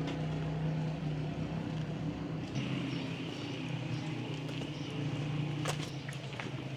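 A vehicle engine running steadily, with a few sharp clicks near the end.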